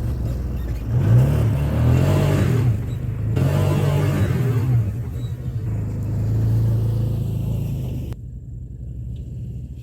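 A Can-Am Commander 1000 side-by-side's V-twin engine running under way, revving up and easing off twice, then running more evenly. About eight seconds in, the sound suddenly turns quieter and duller.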